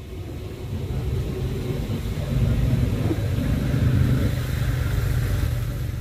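A motor vehicle's engine and road noise, a low rumble that grows louder over the first two or three seconds, then holds steady.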